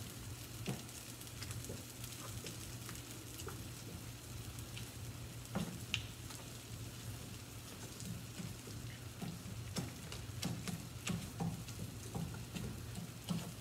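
Beans refrying in hot oil in a frying pan, a steady sizzle, with soft irregular taps and squishes as a potato masher mashes them against the pan.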